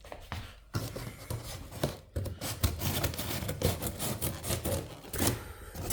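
Cardboard shipping box being worked open and handled: irregular rubbing and scraping of cardboard with small knocks, starting about a second in.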